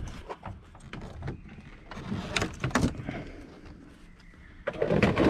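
Plastic interior trim being handled: a sharp click at the start as the A-pillar speaker connector is unplugged, scattered light clicks and knocks, and a louder plastic clatter near the end as the loose pillar trim panel is moved.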